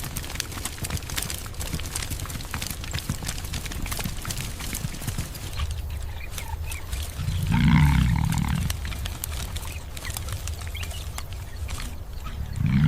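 Wildebeest herd on the move: a dense clatter and rumble of many hooves, then two loud, low animal calls about a second long each, one past the middle and one at the end.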